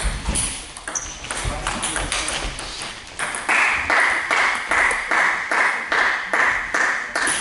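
Table tennis balls clicking off bats and tables, scattered at first. From about three seconds in, a ball is bounced in an even rhythm, about two or three bounces a second.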